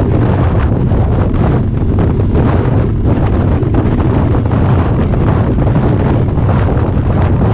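Heavy wind buffeting on a motorcycle-mounted camera's microphone at cruising speed, over the low, steady running of the Harley-Davidson's V-twin engine.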